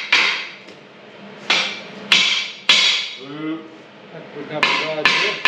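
Hammer blows on steel, each strike ringing briefly: four spaced blows, a pause, then three more in quicker succession. This is steel being knocked into fit on a headstock adapter.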